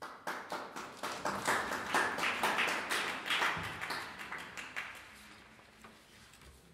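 Small audience applauding: the clapping breaks out suddenly, swells over the first few seconds, then thins out and fades after about five seconds.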